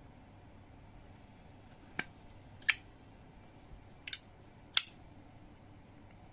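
Zippo lighter's metal case clicking as it is handled: four sharp metallic clicks, in two pairs less than a second apart, the second of each pair the louder with a short ring.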